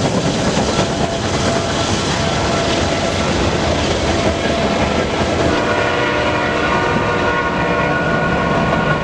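Kansas City Southern freight train passing close by, with several EMD and GE diesel locomotives going past and then tank cars: a loud steady rumble of engines and wheels on rail. A steady high tone joins about halfway through.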